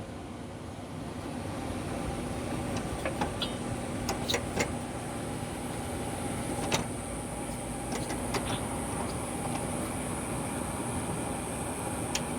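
A few faint clicks and light knocks of mower deck parts being handled as the deck drive belt is fitted, over a steady background hum.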